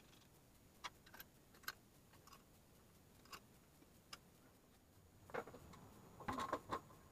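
Faint small metal clicks and ticks as a bolt and nut are fitted through a perforated metal bracket, half a dozen scattered over the first four seconds. Near the end comes a louder short clatter of knocks as parts are handled.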